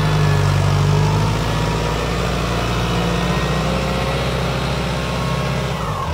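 Ford 6610 tractor's turbocharged diesel engine running steadily under load while pulling a disc plough through the soil, its note a little louder in the first second or so.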